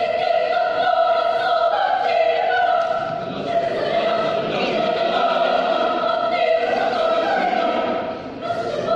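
Mixed choir singing a German Romantic choral piece. It comes in suddenly on a full chord, then moves through long held chords, and drops briefly just before the end.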